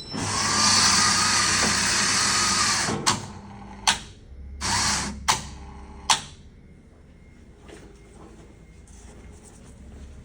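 Coffee vending machine's grinder running for about three seconds, grinding a test dose of coffee, followed by a few sharp clicks and a second, shorter motor run as the dose is released.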